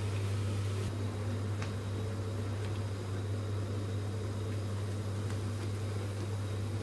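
Steak mince and onion frying in a pan and being stirred with a silicone spatula: faint sizzling with a few light scrapes and taps, over a steady low hum.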